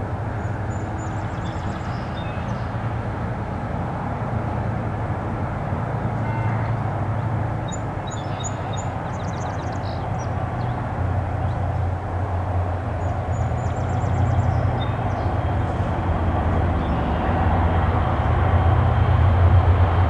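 Diesel locomotive engine running with a deep steady drone, growing louder near the end as the train approaches.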